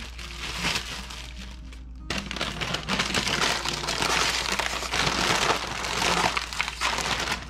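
Crinkling of a plastic bag, then from about two seconds in a loud, crackling crinkle of a potato chip bag being handled and opened, over background music.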